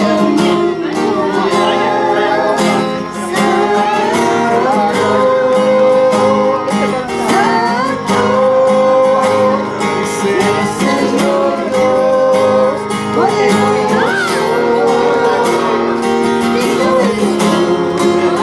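Acoustic guitar strummed with a voice singing along, a song played live.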